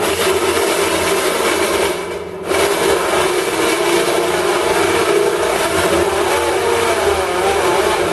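Electric drill running under load as a large step drill bit cuts into stainless steel, with a steady whine from the drill's failing gearbox. It eases off briefly about two seconds in, then bites again.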